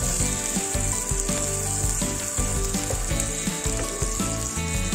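Chopped green chillies, grated coconut and ginger paste sizzling steadily in hot mustard oil in a frying pan as they are stirred, with background music.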